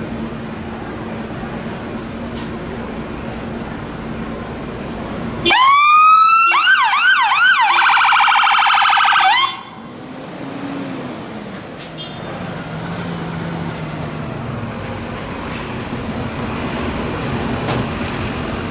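British fire engine's electronic siren: about five seconds in it sounds loudly for about four seconds, a rising wail, then quick up-and-down yelping sweeps, then a rapid warble, and cuts off suddenly. Before and after it, the fire engine's engine is heard running as the truck moves slowly past.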